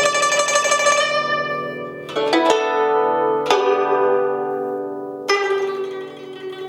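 XianSheng "Petite X3" 100 cm travel-size guzheng being played: plucked notes ring and slowly die away, with new notes struck about two, three and a half, and five seconds in.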